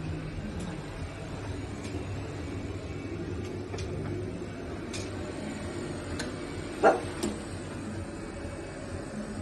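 A dog barks once, short and loud, about seven seconds in, followed by a fainter second yelp. A steady low machine hum runs underneath, with a few faint clicks.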